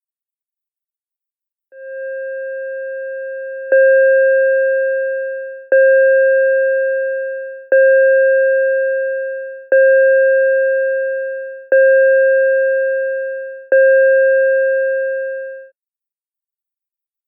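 ASC digital electronic siren controller's synthesized chime signal. After a short silence a steady tone sounds for about two seconds, then six bell-like chime strikes on the same pitch follow every two seconds, each dying away before the next, and it stops a little before the end.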